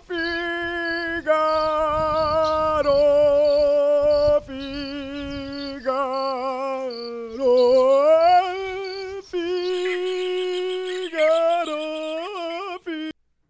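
A voice singing wordless vocal warm-up notes, each held long with vibrato and stepping from pitch to pitch. It dips low and slides back up about seven to eight seconds in, then stops abruptly just before the end.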